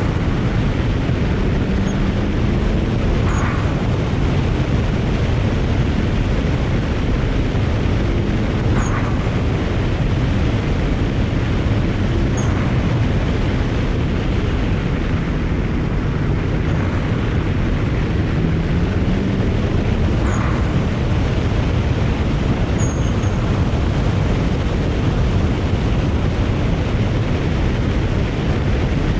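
BMW 335i's twin-turbo N54 inline-six accelerating and shifting, its pitch rising and falling. An aftermarket HKS blow-off valve vents a short whoosh on lift-off several times.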